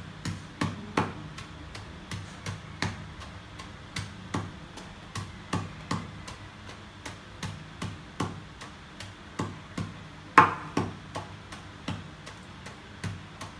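Wooden pestle pounding cassava leaves in a wooden mortar: a steady run of dull knocks, about one and a half a second, with one louder knock about ten seconds in. The leaves are being pounded only coarsely, not to a paste.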